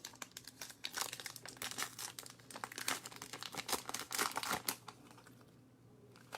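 Plastic card wrapper crinkling in quick, irregular crackles as trading cards are unwrapped and handled, dying down about five seconds in.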